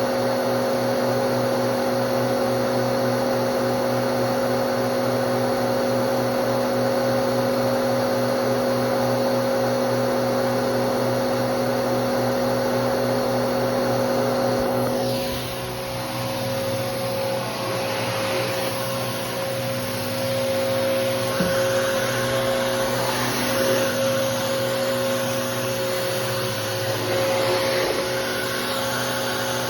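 Bissell PowerForce Helix bagless upright vacuum running with a steady motor hum. About halfway through a brief falling sound comes, and after it the running is less even as the vacuum is worked.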